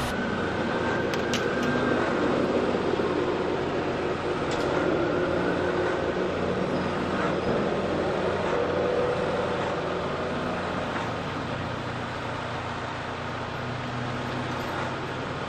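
Steady noisy rumble of vehicle engines running, with faint voices.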